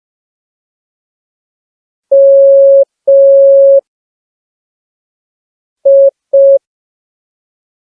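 Morse code (CW) beeps from a smartphone practice app: one steady mid-pitched tone keyed on and off slowly, two long dashes about two seconds in, then two short dits about six seconds in.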